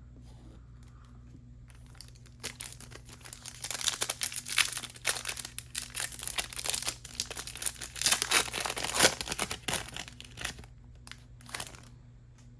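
A foil wrapper of a Panini Select basketball card pack being torn open and crinkled in the hands: a dense run of crackling and ripping that starts about two seconds in and dies away near the end.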